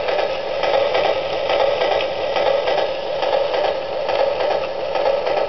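Electronic steam-locomotive sound effect from an O-gauge model locomotive's built-in sound system: a steady hiss through a small speaker, pulsing a few times a second like chuffing.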